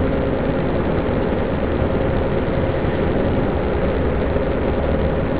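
Steady cabin noise of a car driving along a paved highway: an even rush of tyre and wind noise with a constant engine hum underneath, unchanging throughout.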